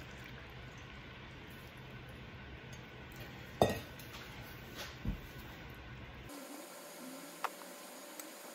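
Stainless-steel mixing bowls clinking together while yeast water is poured into flour, with faint liquid and squishing sounds. The sharpest clink comes about three and a half seconds in, and a spatula knocks lightly in the bowl near the end as the dough is stirred.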